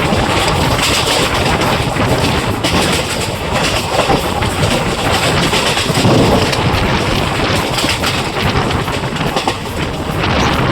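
Passenger train coaches running along the track, heard from on board: a steady rumble of wheels on rails with irregular knocks and rattles, and rushing air.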